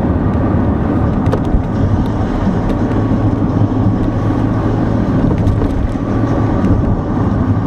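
Car driving on a rough, patched country road, heard from inside the cabin: a steady engine hum and tyre rumble, with scattered small knocks and rattles as the car jolts over the broken surface.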